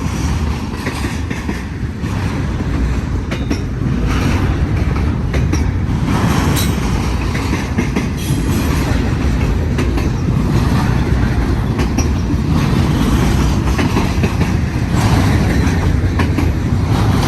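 Freight cars of a BNSF intermodal container train rolling past: a steady, loud low rumble of steel wheels on rail with scattered clicks and rattles over the joints.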